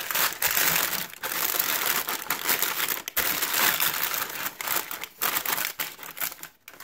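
Parchment paper crinkling and rustling as hands press a ball of bread dough down into the paper lining a frying pan, in long stretches with a few brief pauses.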